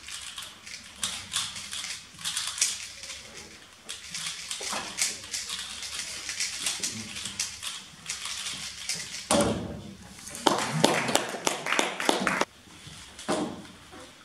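Plastic 3x3 speed cube being turned quickly by hand, a dense run of light clicks and clacks from its layers. Voices join in for a few seconds after the middle.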